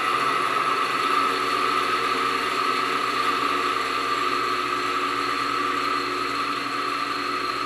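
Oil friction-wear test rig running on fresh oil: its electric motor spins a steel bearing ring against a loaded test piece, and the metal-to-metal rubbing gives a steady high-pitched tone over the motor hum. This is the sign that no load-bearing oil film has formed yet. The tone eases slightly toward the end.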